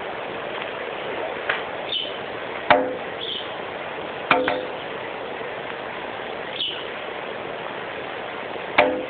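A sanhaço tanager pecking at a window pane: sharp taps with a short ringing glass tone, at irregular intervals a second or more apart, some in quick pairs. Short high chirps come between the taps.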